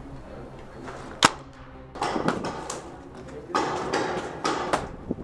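A single sharp paintball marker shot about a second in, then scuffling and rustling on a gritty concrete floor, broken by a few more sharp snaps.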